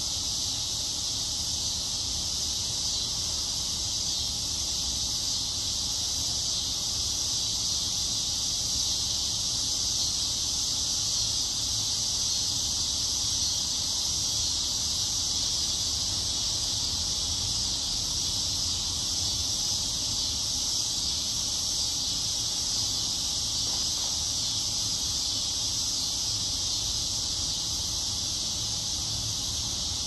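A dense chorus of summer insects making a steady, high-pitched buzz that swells and eases slightly but never breaks, with a faint low rumble underneath.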